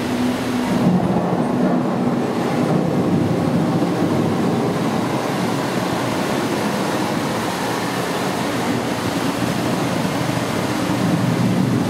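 Steady rushing background noise in a public aquarium hall, even and unbroken, with no distinct events.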